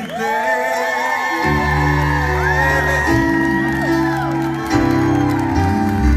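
Live salsa band playing, with a voice singing over the band; the bass comes in about a second and a half in.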